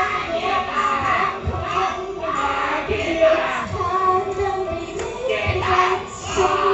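Live idol pop song: a young woman singing the lead into a microphone over the song's music, in a lighter passage without the heavy bass beat.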